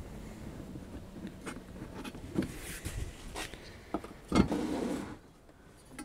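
Faint clicks and scrapes of a screwdriver turning screws into the garden shredder's sheet-metal housing, followed by one louder clunk as the metal housing is handled about four and a half seconds in.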